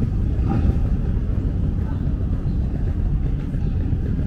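City street ambience: a steady low rumble of traffic with faint voices of passers-by.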